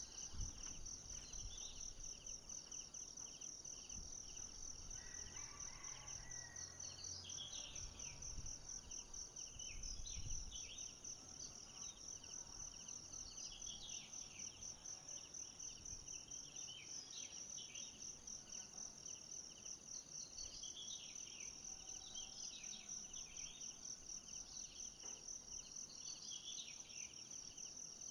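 Forest ambience: insects chirring steadily in a high, rapidly pulsing drone, with short bird chirps scattered through from about eight seconds in. A couple of low thumps, just after the start and around ten seconds.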